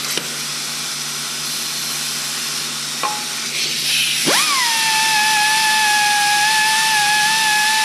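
A pneumatic wire-wheel brush, an air die grinder with a wire brush, cleaning old water pump bolts. For the first few seconds it makes a hissing scrub against the metal. About four seconds in, the tool spins up sharply and runs at a steady high whine.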